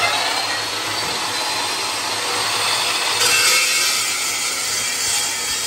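A power saw cutting through the steel tube of a mud truck's link bar, a steady, loud grinding cut through the metal.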